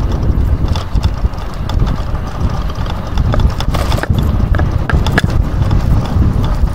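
Wind rumbling on the microphone of a moving electric bicycle, with scattered knocks and rattles in the middle.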